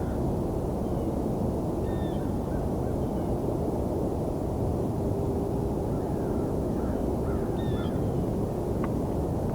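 Steady rumble of distant highway traffic, with scattered short bird calls over it, a few at a time.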